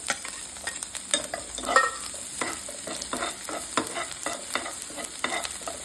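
Chopped garlic and onion sizzling in hot oil in a pan, with a spatula stirring and scraping against the pan in many quick, irregular clicks and scrapes.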